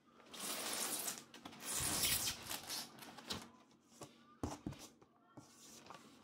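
Hands rubbing and sliding over a cardboard box as it is turned: scraping rustles in two longer stretches in the first couple of seconds, then scattered clicks and a few sharp knocks about four and a half seconds in.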